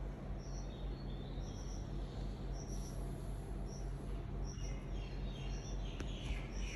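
Small birds chirping in short, high, repeated notes, busier in the last two seconds, over a steady low hum and background noise. A single sharp click about six seconds in.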